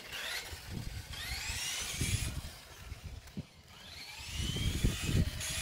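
Tamiya M02L radio-controlled car's electric motor whining up in pitch as it accelerates across concrete, twice, with a low rumble under each run.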